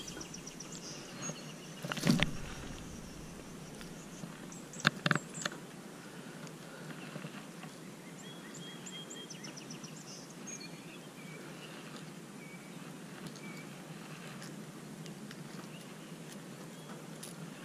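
Lakeside outdoor ambience with small birds chirping and trilling, short high notes repeating in little runs. A loud knock about two seconds in and two sharp clicks about five seconds in, from the fish and lure being handled close to the chest-mounted camera.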